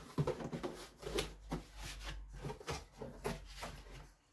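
Cardboard box being pulled open by hand: flaps scraping and rubbing against each other in a series of short, irregular rasps.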